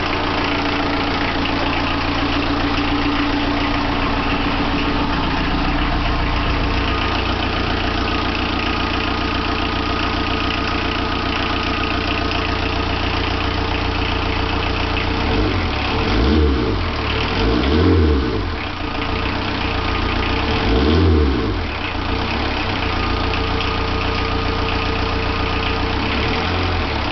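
VW diesel engine in a Suzuki Samurai idling on its first run after the swap. Past the middle it is revved briefly three times, each rev rising and falling back to idle.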